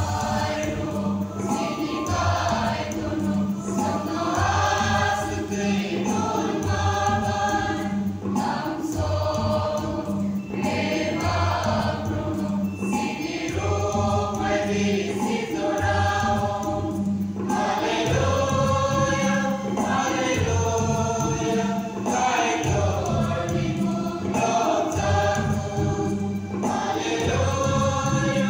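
Mixed choir of young men and women singing a church song in parts, picked up through stage microphones and PA speakers, over a low instrumental backing.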